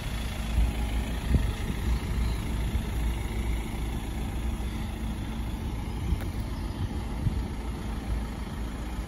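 Ford Transit minibus's diesel engine idling, a steady low rumble.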